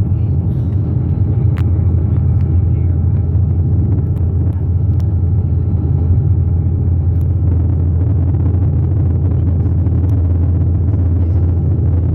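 Dash 8 Q400 turboprop engines and propellers heard from inside the cabin: a steady low drone with faint higher tones over it, unchanging throughout.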